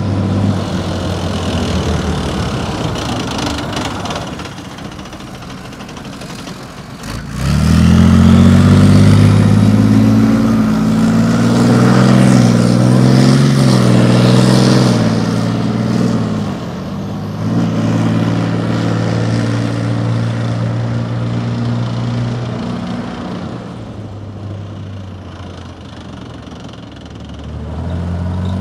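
Leopard 2A7V tank's MTU V12 diesel running under load as the tank drives. The engine surges loudly about seven seconds in and holds, drops briefly around the middle, then picks up again, eases off and swells once more near the end.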